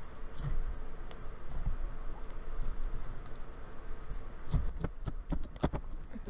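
Slime being handled and squeezed in the hands, giving irregular sticky clicks and pops, with a quick run of louder clicks a little past four seconds in.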